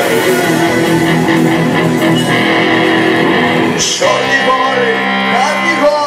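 Live rock band playing, led by a strummed electric guitar over bass and drums.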